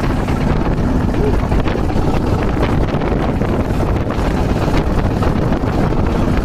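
Wind buffeting the microphone on a small wooden boat under way through choppy sea, over the boat's engine running and water splashing along the hull. The noise is steady throughout.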